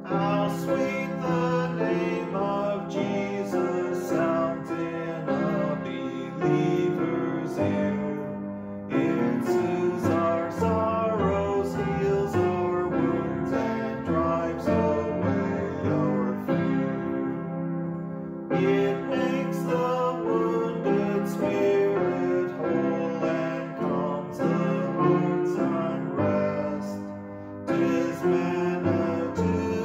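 Upright piano playing a slow hymn tune in chords, with short breaks between phrases about every nine seconds.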